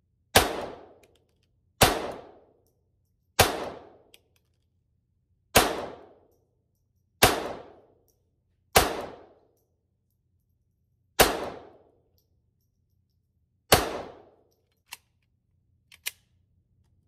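Glock 44 .22 LR pistol fired eight times in slow fire, about one shot every two seconds, each a sharp crack with a short ringing tail. Two light clicks follow near the end.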